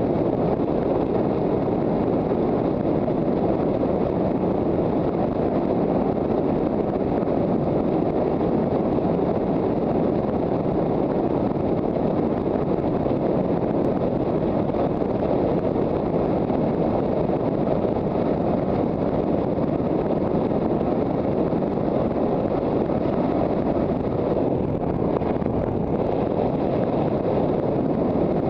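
Loud, steady wind noise on a helmet camera's microphone from riding an electric motorcycle at road speed. It is an even rushing that covers any motor sound.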